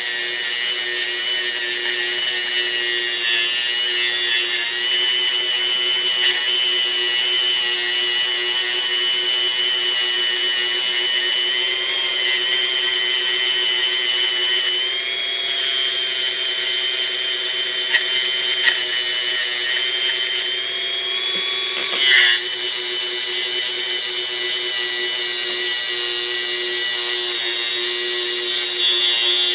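Small electric power tool running steadily with a high whine, cleaning rust off a pair of steel diagonal cutters. There is a brief knock and a change in tone about 22 seconds in.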